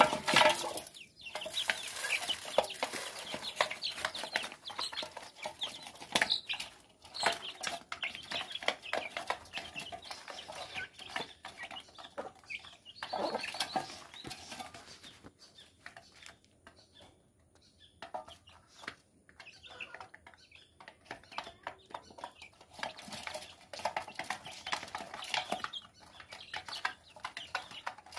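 A hen clucking and her chicks peeping, with quick clicks of beaks pecking grain in a shallow bowl. The sounds thin out for a few seconds past the middle.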